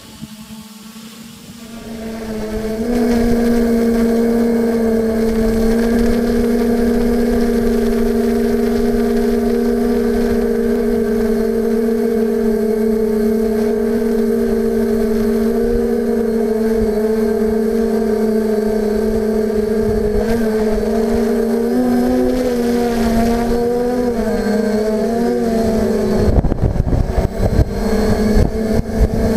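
Steadidrone multirotor drone's electric motors and propellers humming steadily at a constant pitch, heard close from the camera carried on the drone; the hum grows much louder about two seconds in and shifts pitch briefly later on. Near the end, gusty wind rumbles on the microphone.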